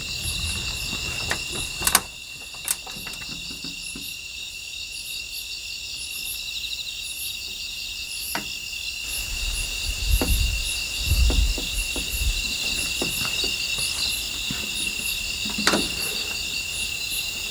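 Crickets and other night insects chirping in a steady high chorus, with a few sharp clicks and knocks as a metal door is opened, and a low rumble about ten seconds in.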